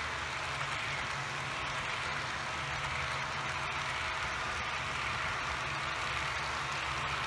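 HO scale model coal cars rolling past on the track: a steady rolling hiss and fine clatter of small metal wheels on the rails, over a low hum.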